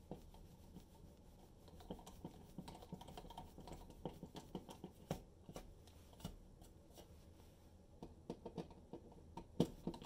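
Quiet, scattered clicks and scrapes of hands and a screwdriver working on a plastic light-switch wall plate. A sharper click comes near the end as the switch paddle is pressed.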